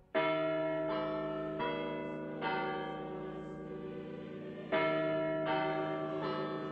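Copenhagen City Hall tower bells chiming a melody, one note about every three-quarters of a second. A phrase of four strokes comes first, and a second phrase begins after a short pause.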